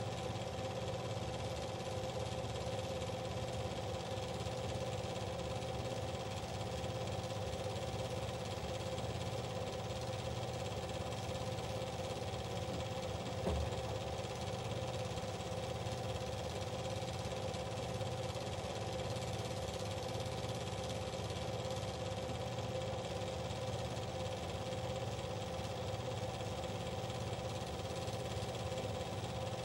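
Steady mechanical running noise from a small motor, even and unchanging, with one brief click about halfway through.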